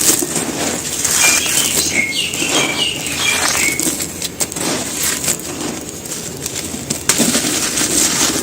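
Dry, gritty cement crumbling and crushing in the hands, with a dense run of small crackles and crunches. A bird chirps a string of short notes in the background for a couple of seconds, about a second in.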